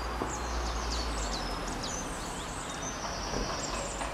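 Small songbirds chirping and twittering in quick high notes, with one longer held note near the end, over a steady background rush.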